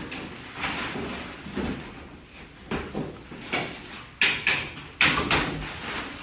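Irregular knocks and clatter, with a few sharp bangs a little past four and five seconds in.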